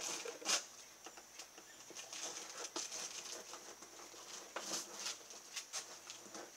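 Cardboard shipping box being opened by hand: irregular crackles, scrapes and snaps of packing tape and cardboard being cut and pulled, over a steady high-pitched drone.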